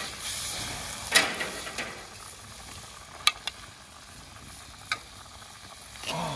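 Green beans, courgette and tomatoes sizzling in olive oil in a pan over a charcoal fire, a steady frying hiss. A loud clatter of the pan or utensil about a second in, and a few sharp metal clinks of a spoon later on.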